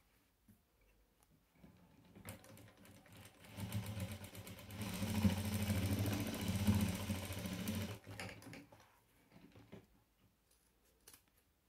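Sewing machine stitching upholstery-fabric scraps: it starts slowly about two seconds in, runs fast for a few seconds with a rapid, even stitch rattle, then stops near eight seconds, followed by a few light clicks.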